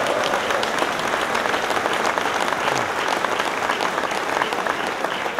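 Audience applauding: a dense, steady mass of clapping from a large crowd, easing off slightly near the end.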